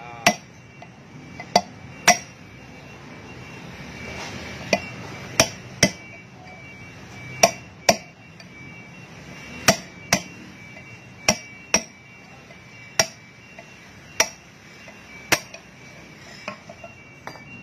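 Hammer striking a steel drift held in a wheel hub's centre bore: about fifteen sharp metal-on-metal blows, roughly one a second and often in quick pairs.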